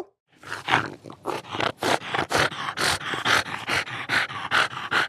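A dog panting hard, in quick, even breaths about two a second.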